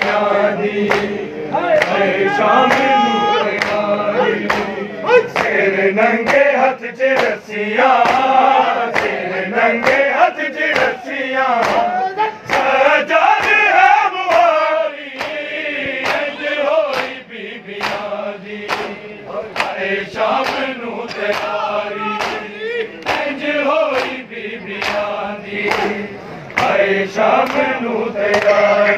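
A crowd of men chanting a noha together, with the sharp, even slaps of matam, bare hands striking chests, about twice a second.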